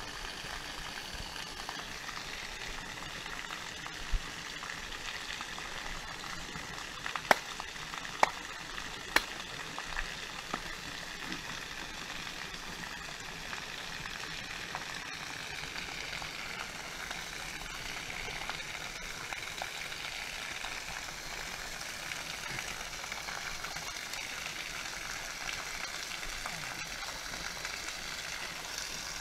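Small waterfall of thin streams pouring steadily onto rock and into a shallow pool, a constant hiss of water. A few sharp clicks sound in the first third.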